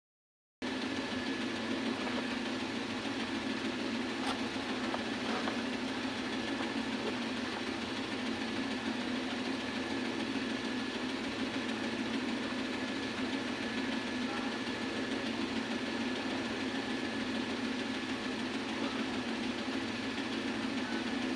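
A motor running steadily with an even, unchanging hum, starting just after a brief dropout at the very beginning.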